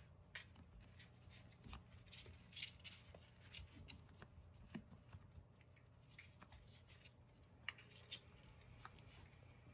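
Faint, irregular ticks and light scratches of kittens' paws moving over a cardboard floor, with one sharper click late on, over a low steady room hum.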